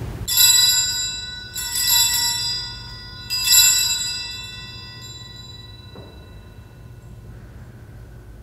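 Altar bells rung three times at the elevation of the consecrated host. Each ring is a bright cluster of several pitches that dies away slowly, and the last one fades out about halfway through.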